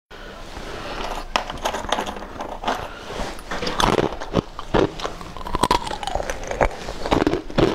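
Biting and crunching on brittle icy flakes: a steady run of sharp, crackling crunches.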